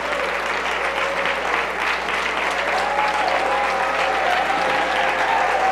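Congregation applauding steadily, a dense patter of many hands clapping.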